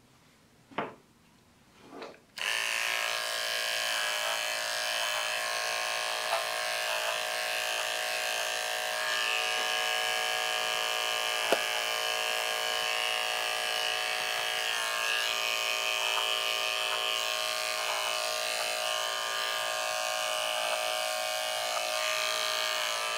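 Andis electric pet clippers fitted with a No. 10 blade switch on a couple of seconds in and run with a steady hum, shaving the hair out from between a dog's paw pads. One short click about halfway through.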